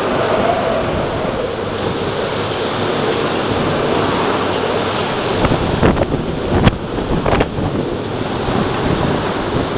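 Typhoon wind and rain: a loud, steady rush of noise with gusts buffeting the microphone, and several sharp knocks between about five and a half and seven and a half seconds in.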